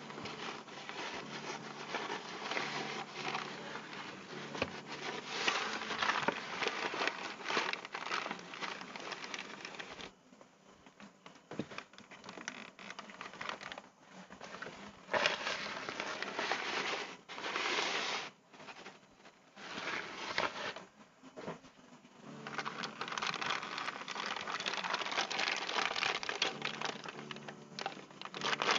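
Plastic packaging crinkling and rustling as it is handled, in irregular bursts, with a quieter stretch in the middle.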